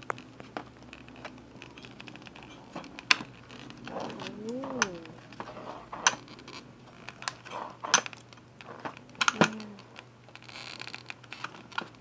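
Small plastic toy pieces and a cardboard box being handled: a series of sharp clicks and taps, with a brief crinkle of plastic wrap near the end.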